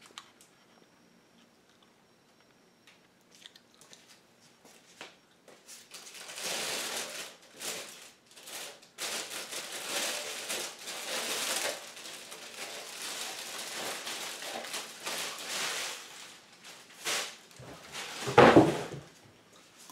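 Thin plastic bag crinkling and rustling for about ten seconds as it is pulled off an RC car's body. A heavy thump comes near the end.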